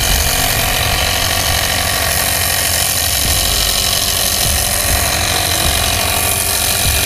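Steady, unchanging mechanical drone with a low hum underneath, running without a break.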